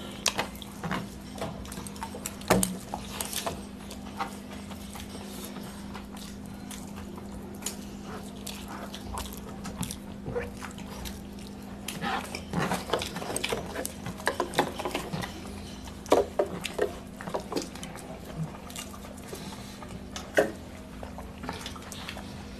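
Close-up eating sounds: chewing, lip smacks and fingers mixing rice and curry on the plates, heard as scattered short wet clicks and smacks over a steady low hum.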